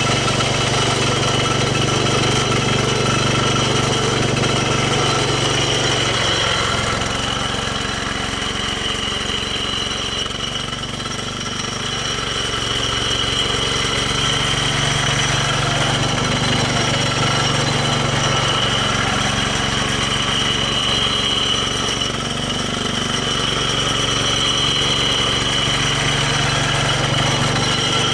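Small gasoline engine of a snow-clearing machine running steadily under load, its note sagging briefly a few times.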